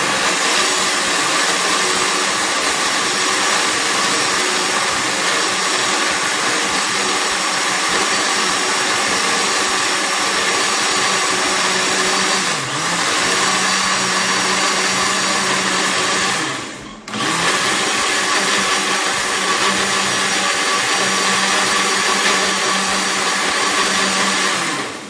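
Countertop blender motor running at full speed, grinding rice with water to a fine paste. It dips briefly about halfway, cuts out for a moment around two-thirds through, starts again, and stops just before the end.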